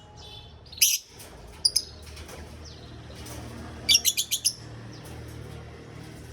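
Lovebirds chirping: a sharp high chirp about a second in, a double chirp soon after, and a quick run of about six shrill chirps near the middle, over a low steady hum.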